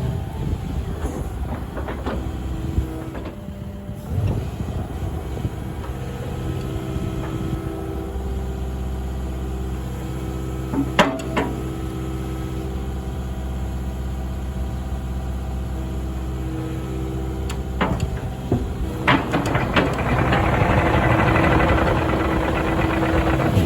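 Kubota KX080-4 8-tonne excavator's diesel engine running steadily, with a few sharp knocks about eleven and eighteen seconds in. From about twenty seconds in it grows louder, with a rough hiss over the engine.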